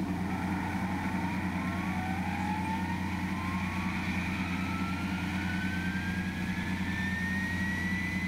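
Electric motor of a Mikado Logo 800 model helicopter spooling up the rotor before takeoff: a whine rising slowly and steadily in pitch, over a steady low hum.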